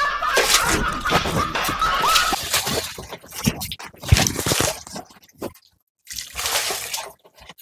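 Water poured from a plastic dipper over a person's head, splashing onto a concrete floor in several uneven bursts, with a short pause near the end.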